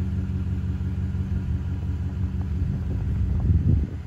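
Engine of a 2013 Ford F-150 FX4 pickup running with a steady low hum, which swells briefly near the end and then drops off.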